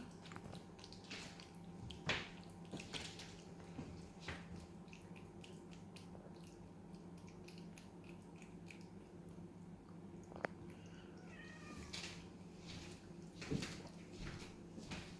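Ragdoll cat eating soft food: faint, scattered chewing and licking clicks, with a short soft pitched sound about eleven seconds in.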